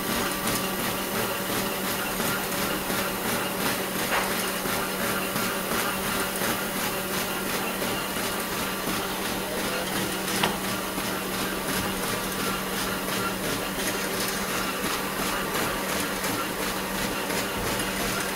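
Buckle-plate paper folding machine running steadily: a dense, fast mechanical clatter over a steady hum, with one sharper knock about ten seconds in.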